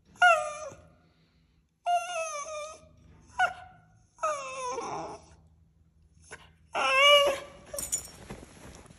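West Highland white terrier whining and whimpering in about five separate high-pitched cries, some sliding down in pitch: begging for a treat that is just out of reach.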